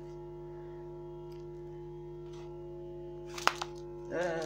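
Steady electrical hum made of several held tones, with one sharp click about three and a half seconds in.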